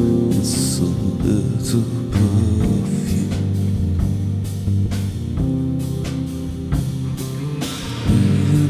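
Slow instrumental band music: sustained low chords and notes with repeated percussion hits, and a bright splash about half a second in.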